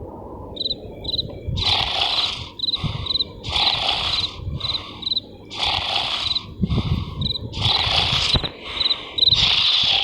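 Cartoon snoring sound effect from an animated larva: a loud rasping snore about every two seconds, alternating with short, high, chirping whistles.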